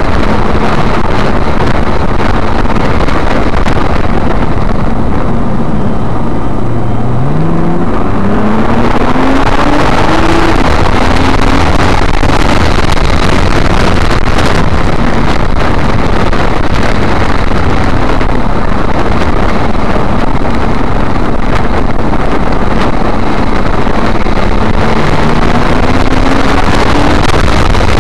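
Nissan GT-R's twin-turbo V6 heard from inside the cabin at speed, under heavy road and wind noise. The engine note climbs under acceleration about a quarter of the way in and again near the end.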